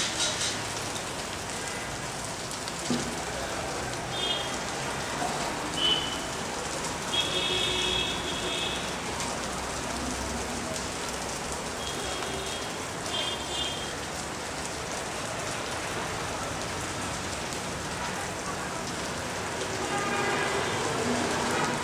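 Steady rain-like patter of dripping water, with a few short high-pitched chirps now and then.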